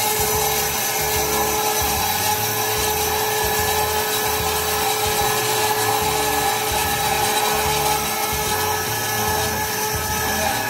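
YT315-Y hydraulic-feed HSS circular cold saw cutting through a round metal pipe, its blade running with a steady whine.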